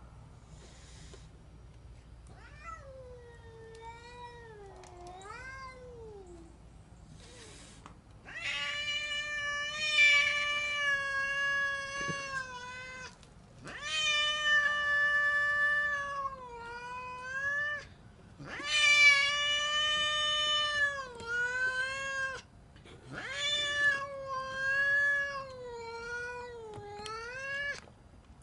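A domestic cat yowling angrily, a long drawn-out caterwaul whose pitch wavers and bends. It starts soft about three seconds in and turns much louder from about eight seconds in, in four or five long yowls with short breaks between them.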